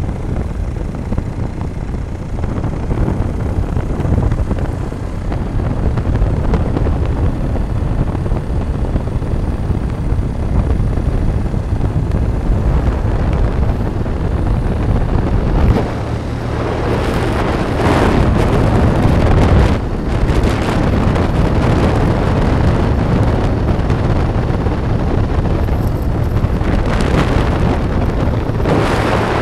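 Wind rushing over the microphone of a moving vehicle, over the steady running noise of the vehicle on the road. The wind comes in stronger gusts from about halfway through.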